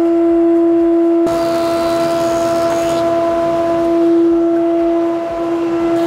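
Old thickness planer running idle, with no board feeding: a steady, loud, pitched whine that holds one note throughout.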